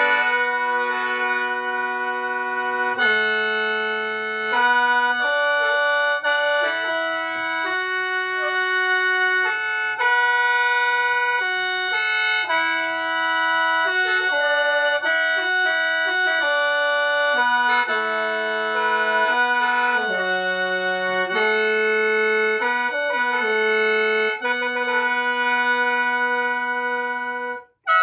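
Lao khaen, a bamboo free-reed mouth organ, played solo: a moving melody of several notes sounding together over a steady held drone, with a brief break just before the end.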